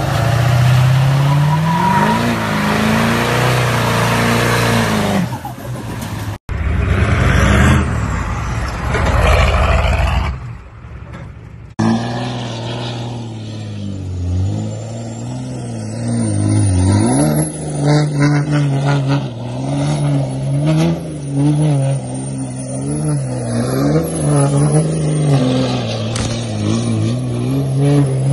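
Diesel pickup truck engines revving hard across several short clips, with abrupt cuts between them. In the longest, a lifted Dodge Ram spins donuts on snow, its engine rising and falling in pitch again and again.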